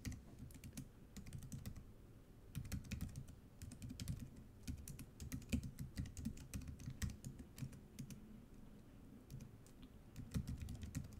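Typing on a computer keyboard, keys clicking irregularly in bursts with short pauses between them.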